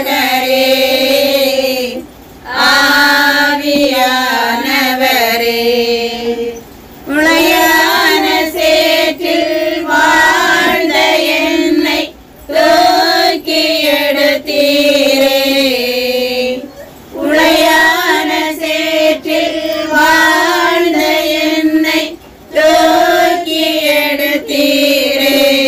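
A group of women and children singing a Tamil Christian worship song together, in phrases separated by short pauses every few seconds.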